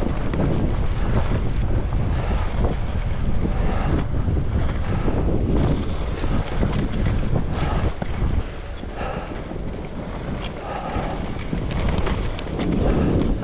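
Wind buffeting the microphone of a skier moving at speed, with the hiss of skis carving over groomed snow swelling and fading every couple of seconds as the turns link.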